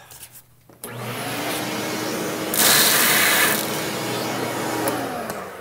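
Shop vacuum switched on about a second in, its motor whining up to speed, with a louder rush of suction for about a second in the middle as it draws leftover coffee beans out of the espresso machine's grinder well; the motor winds down near the end.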